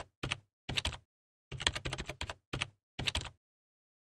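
Typing on a laptop keyboard: quick runs of key clicks in short bursts with brief pauses, stopping about three and a half seconds in.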